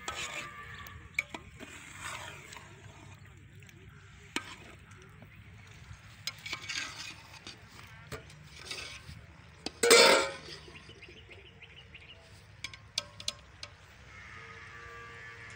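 Metal ladle stirring chicken curry in a cooking pot, scraping and clinking against the pot, with scattered clicks. About ten seconds in there is one short, loud rushing noise.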